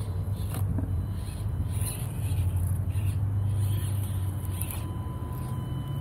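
Axial Deadbolt 1/24-scale RC rock crawler's small electric motor and gears whirring steadily as it crawls over rocks, with occasional clicks of tyres and chassis on stone over a low rumble.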